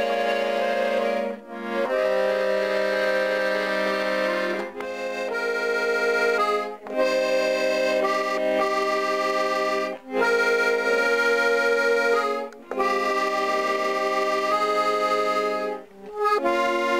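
Background music of held, reedy chords played in short phrases, with a brief break every few seconds.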